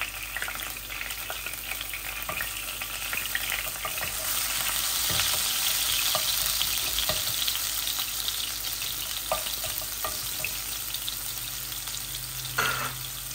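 Sliced garlic sizzling in a tablespoon of hot oil in a non-stick frying pan, stirred with a wooden spatula that clicks and scrapes against the pan now and then. The sizzle swells about four seconds in and eases off slightly later.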